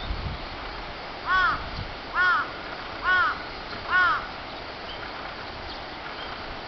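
A crow cawing four times, about a second apart, each caw short and arched in pitch, over a steady outdoor hiss.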